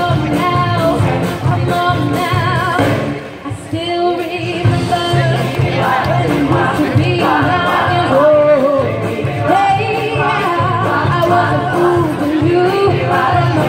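Youth vocal group singing a pop song together through PA speakers, over music with a steady beat. The music briefly thins out about three and a half seconds in, then carries on.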